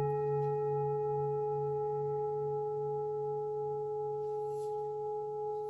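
Large singing bowl, the so-called heart bowl used for sound massage, struck once with a mallet right at the start and ringing on with a bell-like tone: several steady overtones above a slowly pulsing low hum. It rings long and clean, the sign of a very pure bowl whose overtones all vibrate together harmonically.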